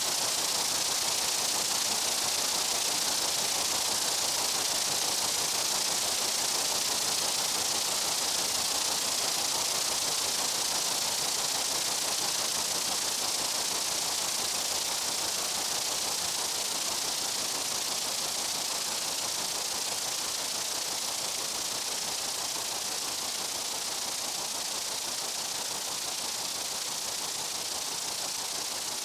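Steady insect buzzing: a dense, even, hiss-like high drone with no breaks or rhythm, easing very slightly toward the end.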